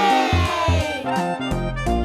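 Upbeat background music with a regular bass beat and bright keyboard-like notes; a sliding tone falls in pitch through about the first second.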